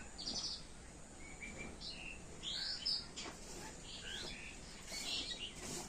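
Small birds chirping faintly: scattered short calls over a low background hiss.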